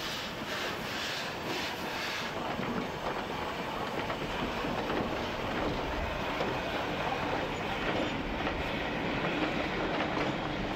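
Narrow-gauge steam locomotive DFB 6 'Weisshorn' pulling away with its train, its exhaust puffing about twice a second for the first two seconds. The coaches then roll past with a steady clatter of wheels on the rails.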